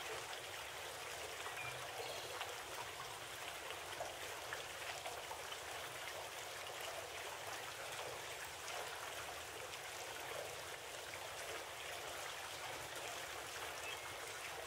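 Steady, faint hiss of running water, even throughout.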